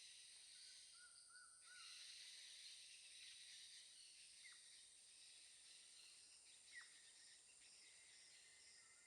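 Faint natural ambience: a steady high-pitched insect chorus, with a short run of three quick bird notes about a second in and two sharp, downward-sweeping bird calls later on.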